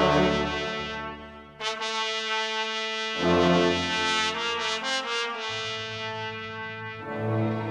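Background music of sustained brass-like chords, changing every second or two.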